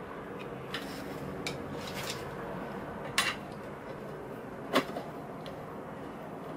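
Metal bolts clinking against a metal boat seat pedestal as they are handled and started by hand: a few light clicks, then two louder clinks about three and five seconds in.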